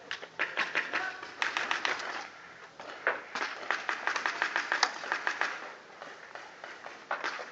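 Paintball markers firing in rapid strings of sharp pops, in three bursts.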